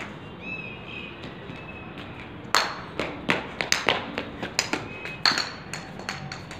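A quiet stretch, then about two and a half seconds in a quick, irregular run of sharp taps and knocks, some with a short ring.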